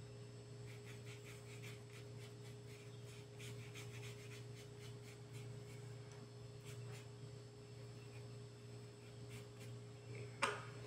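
Faint rubbing and light scratching of a flat paintbrush on fabric, with a few soft taps, over a steady low electrical hum. Near the end comes one sharper knock as a small paint jar is handled.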